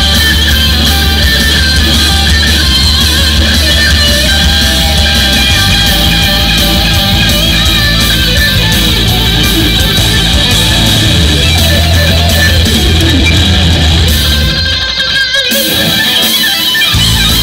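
Electric guitar played live in a heavy rock style over a steady low backing. The low end cuts out for about two seconds near the end, leaving the guitar, then comes back in.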